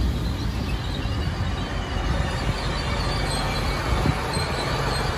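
Great Western Railway Class 802 bi-mode train rolling slowly past along the platform as it arrives, a steady rumble of wheels and running gear. A faint high squeal joins in from about two seconds in.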